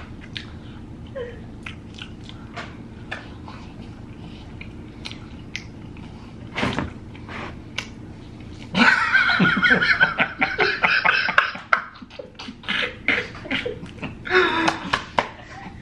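Close mouth sounds, scattered soft clicks and smacks, then about nine seconds in two men break into stifled, breathy laughter lasting a few seconds, with another burst of laughter near the end.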